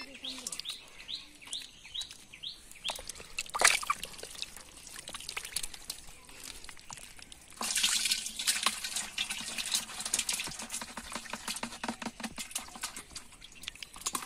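Wet mud and water sloshing and dripping as handfuls of mud are worked and a metal bowl of mud is tipped into a metal pot. The dense wet crackle runs from a little past the middle to near the end. A bird chirps in a quick run of short calls over the first few seconds.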